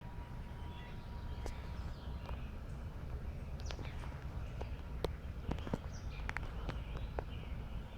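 Outdoor ambience: a steady low rumble with faint bird calls, and scattered sharp clicks and taps throughout.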